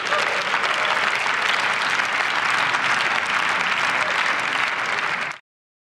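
Members of parliament applauding in a large chamber: many people clapping steadily together. The applause cuts off abruptly a little after five seconds in.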